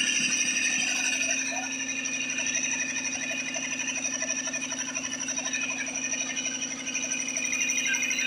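DeNZ 5 hp electric piston air compressor running, its pump clattering rapidly and evenly over a steady motor hum.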